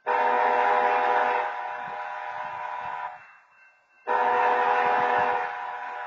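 A railroad horn at a grade crossing sounds two long blasts about four seconds apart. Each blast starts abruptly, is loudest for its first second and a half, then carries on more quietly before cutting off.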